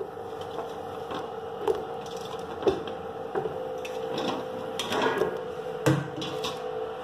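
Whole amla (Indian gooseberries) dropped one after another into hot water in a steel kadhai, each landing as a short knock and splash against the pan, at irregular intervals with a cluster about five seconds in. Under them a steady hum from the induction cooktop.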